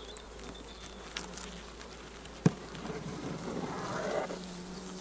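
Honeybees buzzing over an open hive in a steady hum. About halfway through comes a single sharp crack as a hive tool prises a frame free, then a rougher scraping swell of wood on wood as the frame is lifted out.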